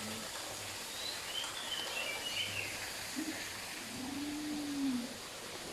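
Birds chirping faintly with high notes, then a short low note and a longer low animal call that rises a little and falls away over about a second.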